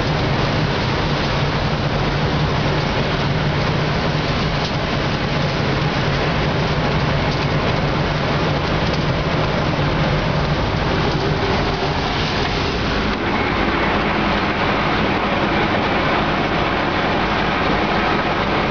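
Wirtgen W2200 cold planer running under load, its milling drum grinding up the road surface in a heavy cut while its conveyor drops planings into a tipper truck: a loud, steady mechanical din. A low engine drone underneath fades about ten seconds in.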